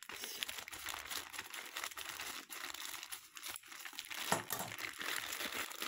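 Plastic courier mailer crinkling and rustling as hands cut it open with scissors and pull it apart, with scattered short sharp crackles.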